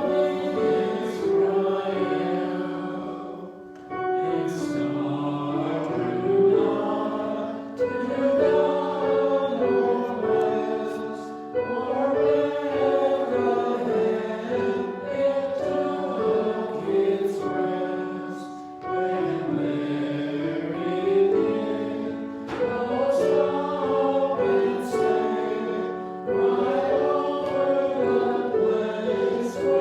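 A choir singing a hymn in several-part harmony, in phrases a few seconds long with short breaks between them.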